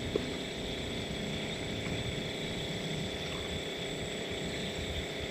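Steady low rumbling background noise with a faint, steady high-pitched whine above it, and a single small click just after the start.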